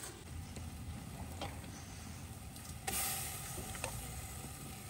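Propane camp burner running steadily under a steaming stockpot, a low rumble with a few faint clicks; the noise grows fuller and louder about three seconds in.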